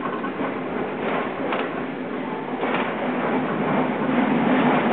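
Tram running on its rails: a steady rumble and low hum with a couple of sharp wheel clacks, growing louder toward the end.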